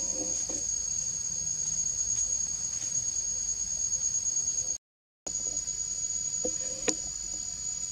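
Steady high-pitched drone of forest insects, with one sharp click near the end. The sound cuts out completely for about half a second a little after the middle.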